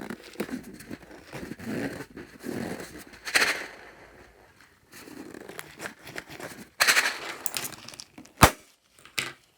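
Glossy slime being handled and worked: irregular sticky crackling and clicking, with a single sharp snap near the end.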